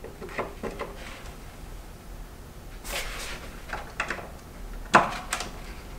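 Small screwdriver tip clicking and scraping on the screws of a wall switch plate as they are turned, in a few short clicks with a brief scrape about three seconds in and a sharper click about five seconds in.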